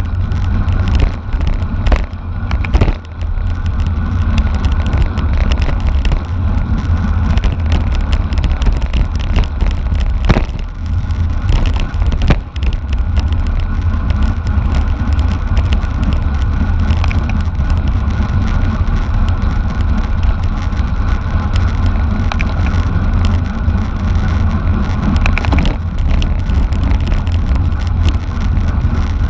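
Steady wind rumble on the microphone and road noise from a bicycle rolling at speed, with a few sharp knocks from bumps in the road.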